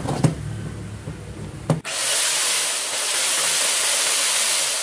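Two clicks, then about two seconds in a Makita M9002B 125 mm angle grinder (1050 W) starts and runs at no load, about 11,000 rpm, with a steady high-pitched whir that eases slightly near the end.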